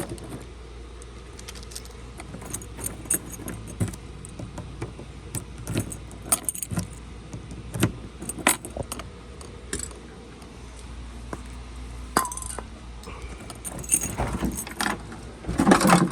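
Metal car keys jangling and clinking at a trunk lock, a scatter of light clicks and rattles that grows louder and busier near the end.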